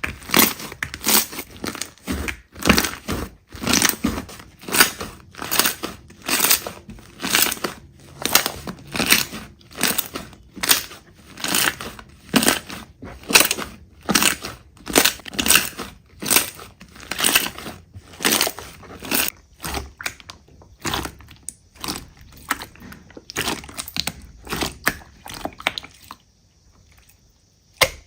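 Slime being squeezed and pressed by hand: a quick run of crackling, crunching squishes, about two or three a second. They thin out after about twenty seconds and stop briefly near the end.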